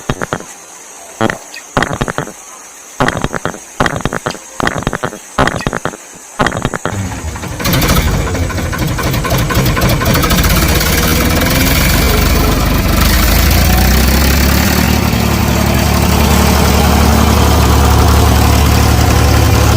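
A run of separate sharp clicks and knocks. About eight seconds in, an engine starts up and keeps running steadily, its low drone growing stronger about halfway through.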